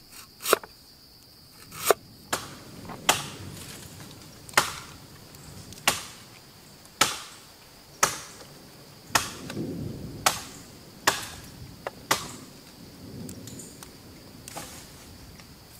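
Cleaver chopping down onto a wooden cutting board: about a dozen sharp chops, roughly one a second, over a steady high trill of insects.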